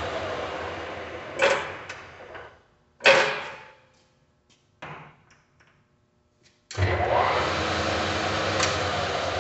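Mori Seiki MS-1250G engine lathe's spindle and headstock gearing running steadily, then winding down as the foot brake stops it, with a clunk about a second and a half in and a louder one about three seconds in. A few light clicks of the gear-change levers follow in near quiet, then the lathe starts up again abruptly about seven seconds in and runs steadily.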